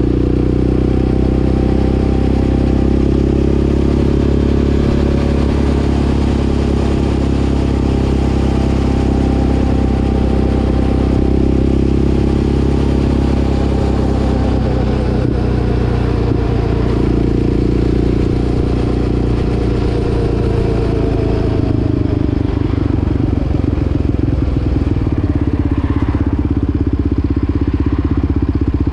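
Yamaha Raptor 700 quad's single-cylinder four-stroke engine running under way at a steady road speed. The engine note holds fairly even, with small rises and falls in pitch.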